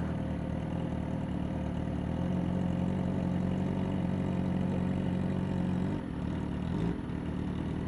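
Motorcycle engines idling at a standstill. The steady engine note holds a little stronger from about two seconds in and drops back near six seconds.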